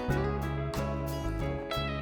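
Background instrumental music with plucked guitar notes.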